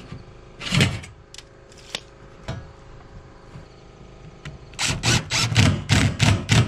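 Cordless DeWalt driver sinking a screw into a corrugated steel roof panel, running in short bursts about four a second during the last two seconds. A few knocks come before it, the loudest about a second in.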